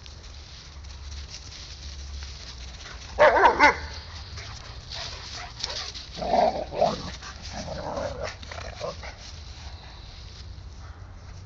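Rhodesian ridgebacks barking at play: a quick, loud run of barks about three seconds in, then more, lower barking around the middle as two of them tussle.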